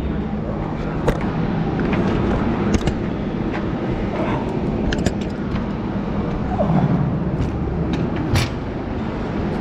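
Steady low rumble of industrial machinery, with a few short sharp knocks about a second in, around five seconds in and near the end.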